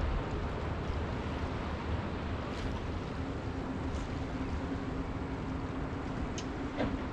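Steady rush of ocean surf and wind at the seaside, with a faint steady motor-like hum joining about two and a half seconds in and a few light clicks.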